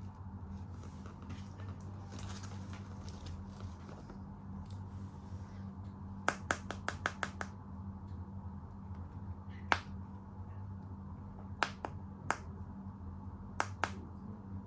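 Hard plastic toy animal figures being handled: soft rustling, then a quick run of about seven sharp clicks about six seconds in, followed by a few single and paired clicks, over a steady low hum.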